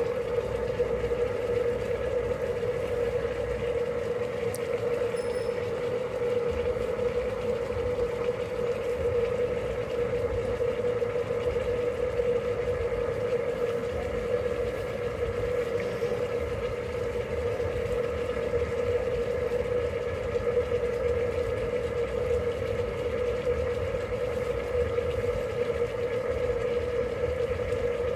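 A steady mechanical hum: an unchanging mid-pitched drone over a low even rush, like an electric appliance or motor running.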